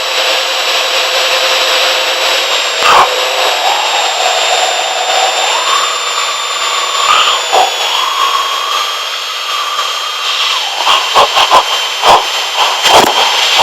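Cessna 182's piston engine and propeller running at climb power, heard inside the cockpit as a steady drone with a high whine. A wavering mid-pitched tone sounds in the middle. Sharp clicks and knocks come in a quick series in the last few seconds.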